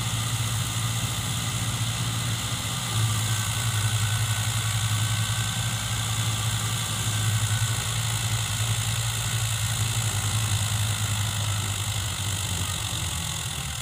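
Fiat 640 diesel tractor engine running steadily while driving a wheat thresher, labouring under the load. Its drone steps up about three seconds in and sags near the end as the engine begins to stall again.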